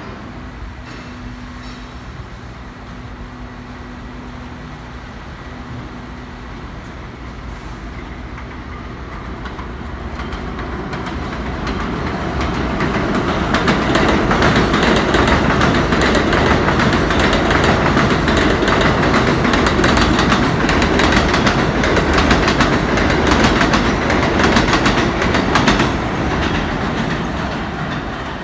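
R160 subway train running through a station at speed on an elevated line without stopping. The wheels clatter rapidly over the rail joints. It grows louder over several seconds as the train approaches, stays loud for about twelve seconds as the cars pass, then starts to fade near the end.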